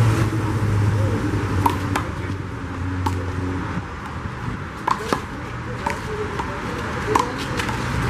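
A rubber handball being slapped by hands and rebounding off a concrete wall and court in a one-wall handball rally: about half a dozen sharp smacks at uneven intervals, over a low steady hum.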